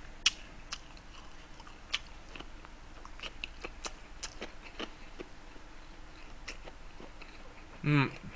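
A person chewing a mouthful of gimbap close to the microphone: soft, irregular wet mouth clicks and smacks. A short hummed vocal sound comes near the end.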